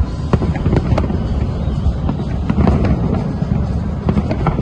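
Fireworks bursting: a rapid run of sharp cracks and pops over a continuous low rumble of explosions.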